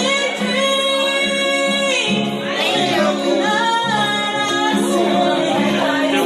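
A woman sings a country song with acoustic guitar, holding long notes that slide in pitch between phrases.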